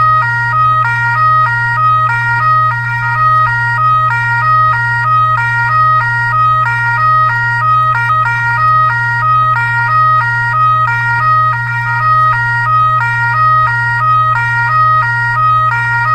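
Electronic siren sounding a looping pattern of stepped tones that jump between pitches several times a second, over a steady low hum.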